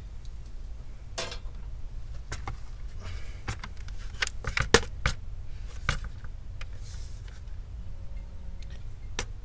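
Scattered clicks and light knocks of gloved hands handling a disassembled all-in-one computer's sheet-metal chassis and plastic parts, the loudest a little under five seconds in, over a low steady hum.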